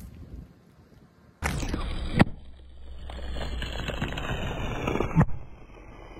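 Car tyre rolling over snack packets on asphalt, crunching the food inside and crackling the plastic wrappers, over a steady low hum. A sharp crack stands out about two seconds in and another about five seconds in.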